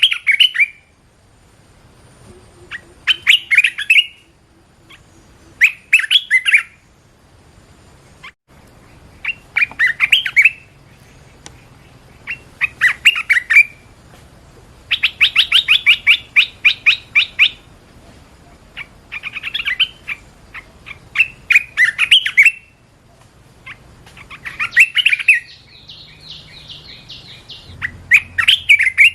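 Bulbul (merbah belukar) singing: short, quick phrases of chirpy notes repeated every two to three seconds, with one longer run of notes around the middle.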